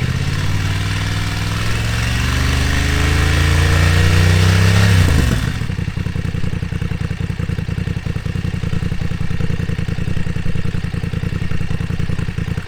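BMW F 900 R parallel-twin engine breathing through an SC Project SC1-R carbon exhaust, revved steadily higher for about five seconds for a stationary decibel measurement. The throttle is then snapped shut, and the revs fall quickly back to a steady idle.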